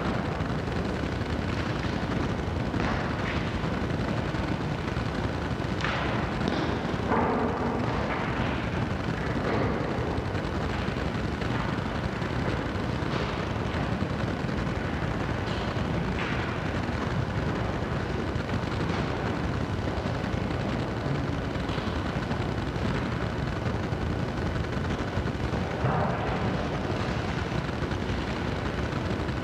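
Steady low rumbling noise with a few faint knocks and shuffles scattered through it.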